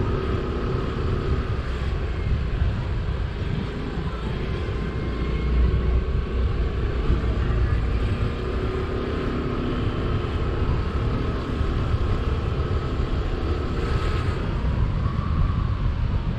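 Yamaha NEO single-cylinder scooter under way: the engine runs steadily under a heavy low rumble of wind and road noise, with a faint whine that slowly drifts in pitch.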